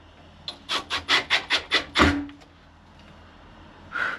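A hand tool rasping quickly back and forth against a workpiece: about eight strokes in a second and a half, the last one the heaviest. A short sharp sound follows near the end.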